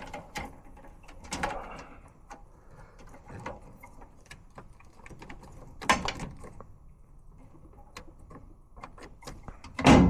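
Scattered clicks, knocks and rustling from hands working on an HVAC air handler and its parts, with a heavy knock about six seconds in and the loudest thunk near the end.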